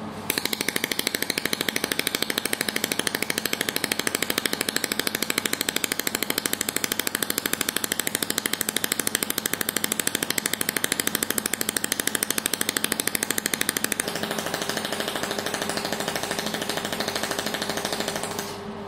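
400 W mold-repair laser welding machine firing a rapid, even train of laser pulses, each a sharp snap as it strikes the metal. About 14 seconds in the pulses turn a little softer with a steady hum beneath them, and they stop shortly before the end.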